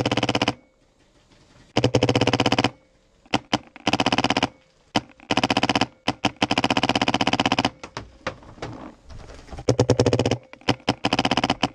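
Paintball marker firing close up in rapid bursts, many shots a second. Each burst lasts from a fraction of a second to about a second and a half, with short pauses between.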